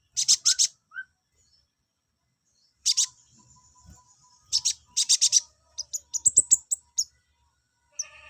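Kolibri ninja sunbird song: bursts of sharp, high-pitched chirps and quick trills in several separate phrases with short pauses between them. This is the kind of song played to raise a male sunbird's breeding drive.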